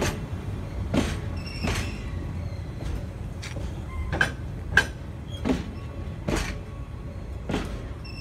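Chiki 6000 rail-carrying flat wagons rolling slowly past, their wheels knocking over rail joints about once a second, some knocks with a short squeal, over a low steady rumble.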